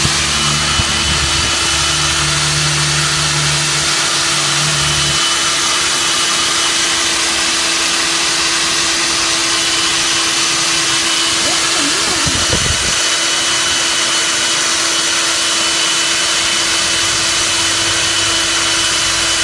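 Diamond core drill on a rig stand running steadily, its water-cooled core bit cutting into a concrete slab: a steady motor whine over a grinding hiss. A low hum in the mix drops away about five seconds in.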